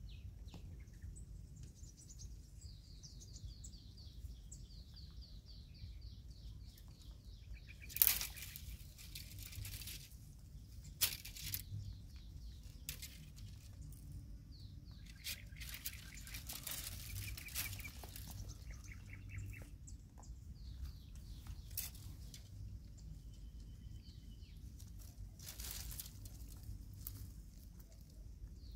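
Small birds chirping in quick runs of short high notes, while leafy branches rustle in several bursts as a young macaque climbs through them, the loudest burst about a third of the way in. A steady low rumble lies underneath.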